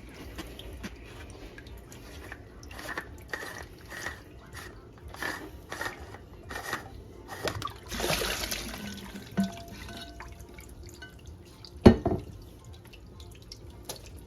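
Water dripping and splashing from a water filter housing that leaks at the bottom because its gasket is not seated right, with a brief rush of water about eight seconds in. A single sharp knock comes near the end.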